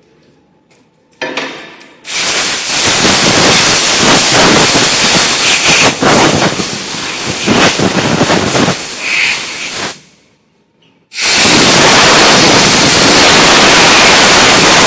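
Compressed-air blow gun hissing hard in two long blasts, the first starting about two seconds in after a short puff, the second after a break of about a second. It is blowing cured soft-PVC pieces loose from their aluminium mold.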